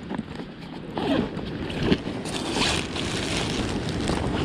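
Footsteps on dry sand with clothing and gear rustling, a few steps standing out, over a steady background of surf.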